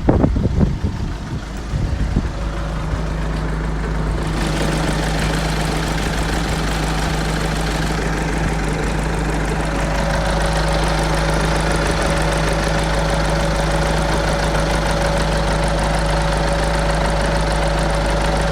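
Seat Leon FR's 2.0 TDI CR170 common-rail four-cylinder diesel idling, uneven for the first couple of seconds and then running steadily; a steady higher whine joins about ten seconds in. The owner finds the idle rough and asks whether it is normal.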